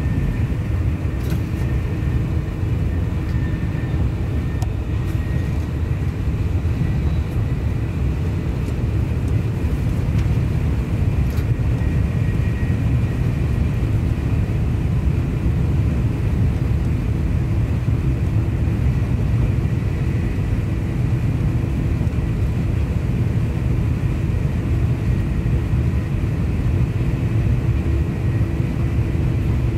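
Steady low rumble of a TGV POS high-speed train, heard inside the passenger car as it accelerates through about 290 to 310 km/h. A faint steady high tone sits above the rumble.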